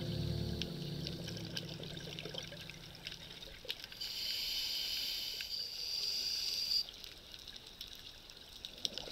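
The music fades out, leaving faint watery trickling with scattered small clicks. In the middle comes a few-second high shimmering tone that cuts off suddenly, and music starts again at the very end.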